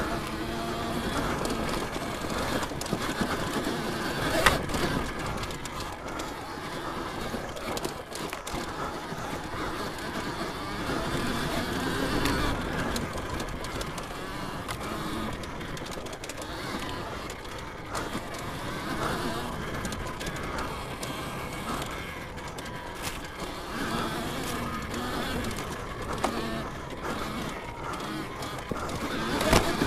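Alta Redshift MXR electric dirt bike being ridden on trail: its drive chain clacks over the sprockets with a whine from the chain and sprockets. There is a sharp knock about four seconds in and another near the end. Without an engine, this chain noise is mostly what the bike makes.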